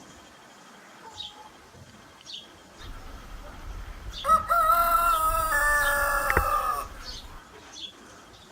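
A rooster crows once, a long call of about two and a half seconds that begins about four seconds in and steps up in pitch partway through. Faint short bird chirps come before it.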